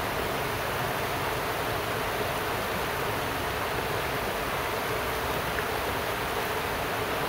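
River running high, washing steadily over rocks and riffles.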